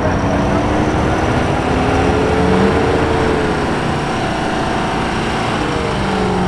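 Ford Super Duty pickup's 6.7 L Power Stroke V8 turbodiesel running steadily under heavy load, its tyres spinning and churning deep sand as it drags a loaded trailer.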